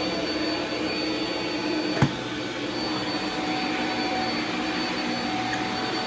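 Shark MultiFlex vacuum cleaner running steadily with a high-pitched motor whine. There is a single sharp knock about two seconds in.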